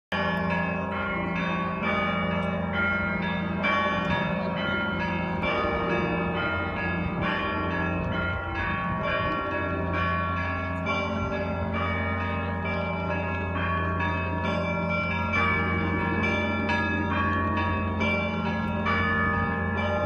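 Russian Orthodox church bells ringing: many bells of different pitches struck in quick succession, their tones overlapping and ringing on without a pause.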